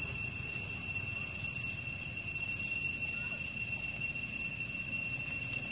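Steady, high-pitched insect drone holding several unwavering pitches at once, over a low, even background rumble.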